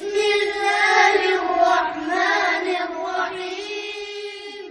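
A high voice singing a drawn-out chanted melody, held almost without a break and moving only a little in pitch, then fading out at the end.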